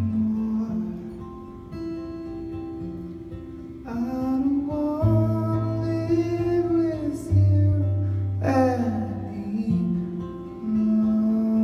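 A man singing live to his own acoustic guitar, with held guitar notes underneath and sung phrases coming in about a third and again two thirds of the way through.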